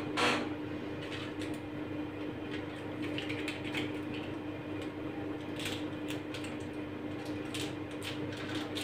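Quiet handling of puff pastry: hands folding and pressing dough around potato filling on a wooden board, with light rustles and small taps, a brief louder rustle at the very start, over a steady low hum.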